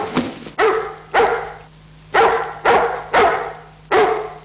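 Dog barking repeatedly, in runs of two or three barks about half a second apart with short pauses between runs.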